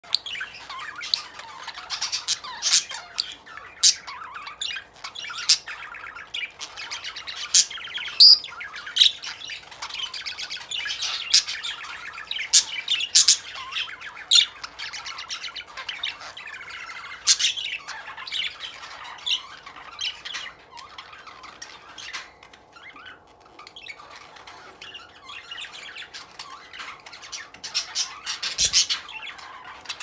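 Pair of budgerigars courting and mating: a busy, chattering warble studded with many sharp chirps and squawks, dropping off for a few seconds before a fresh run of chirps near the end.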